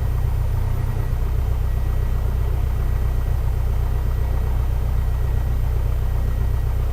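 Cessna 172's piston engine and propeller idling in the cabin, a steady low drone with no change in pitch.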